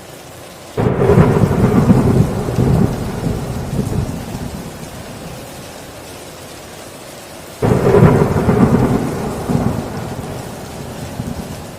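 Heavy rain on a tin roof under two peals of thunder. Each peal breaks suddenly, the first about a second in and the second just past the middle, and rumbles away over a few seconds.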